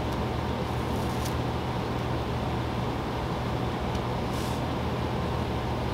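Steady low background hum of room machinery, with faint rustles of headliner fabric being handled about a second in and again a little past four seconds.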